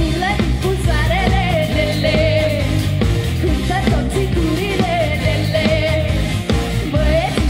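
Wedding band playing live, with a woman singing a wavering, vibrato-laden melody over a steady bass and drum beat.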